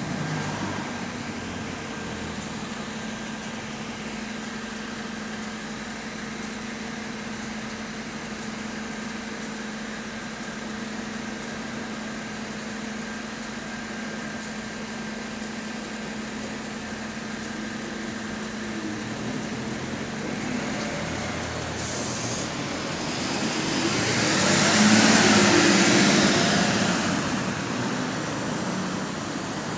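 Dennis refuse truck's diesel engine idling steadily. After about twenty seconds there is a short hiss of air, then the engine gets loud as the truck pulls away and drives off, fading toward the end.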